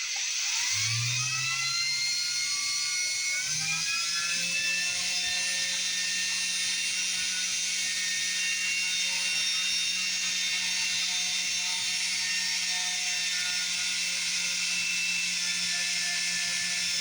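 Power drill starting up, its pitch rising over the first few seconds, then running steadily as it bores a knob hole through a kitchen cupboard door.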